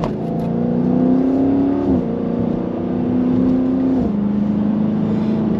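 Widebody Dodge Charger's V8 engine pulling under throttle. Its pitch climbs slowly, then drops sharply twice, about two and four seconds in.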